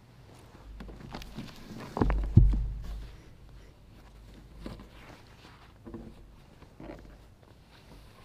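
Objects being handled and set down on a wooden altar: two heavy thumps about two seconds in, then softer knocks with rustling of cloth and pages.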